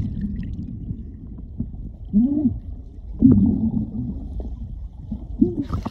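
Muffled underwater sound from a camera submerged in a lake: low water rumble with all the high sound cut off, and three short muffled vocal sounds rising and falling in pitch, about two, three and five and a half seconds in. Right at the end the camera breaks the surface and the open-air hiss comes back.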